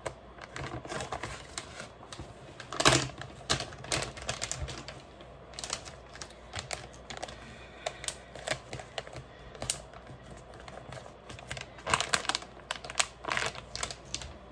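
Shiny plastic packaging bag being handled and folded by hand, crinkling in irregular crackles, with louder rustles about three seconds in and again near the end.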